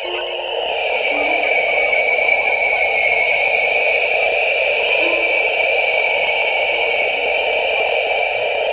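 Synthesized space sonification of the Webb telescope's near-infrared image of the Southern Ring Nebula: a steady, shimmering drone in a low and a high pitch band, light colours mapped to sound frequencies. Short low notes sound here and there, one about five seconds in, where the nebula's central star is heard as a louder clang.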